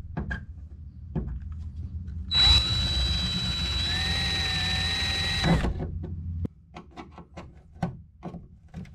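Power drill drilling out a rivet on a fiberglass boat, running steadily for about three seconds starting a couple of seconds in, with a high whine and a second, lower tone joining partway through. Short handling knocks before and after.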